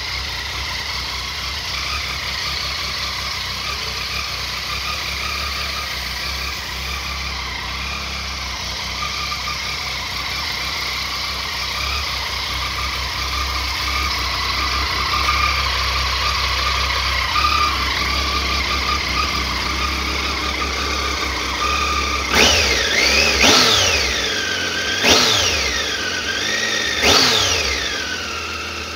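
2011 Triumph Tiger 800 XC's 800 cc inline three-cylinder engine idling steadily, then revved four times in quick throttle blips near the end, the pitch jumping up and falling back each time.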